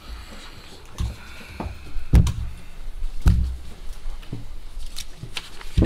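Scattered thumps and knocks of people moving about a wooden dais, with chairs shifting and footsteps in a small hall. The loudest bumps come about two and three seconds in, with another near the end.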